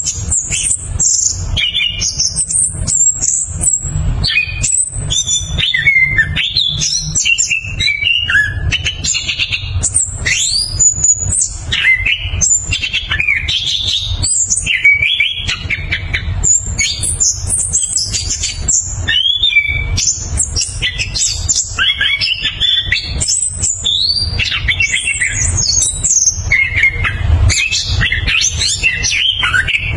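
Caged anis kembang (chestnut-capped thrush) in full song: a rapid, unbroken run of varied whistles, slurs and trills. A low rumble runs underneath.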